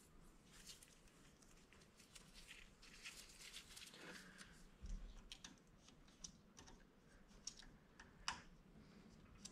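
Faint scattered clicks, ticks and light rustling from gloved hands working a feeler gauge at a small engine's exhaust valve, checking the valve clearance after grinding the valve stem. There is a low thump about five seconds in and a sharper click near the end.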